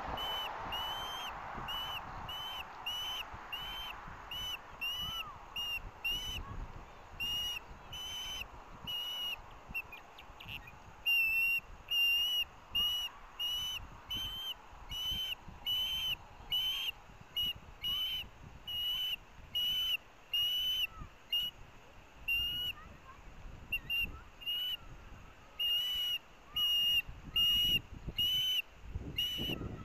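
Osprey calling: a long, steady series of short, high whistled chirps, about two a second, typical of a young osprey begging for the fish another bird is eating.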